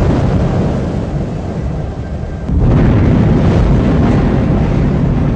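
Erupting volcano with lava fountaining: a dense, low rumble that suddenly grows louder about two and a half seconds in.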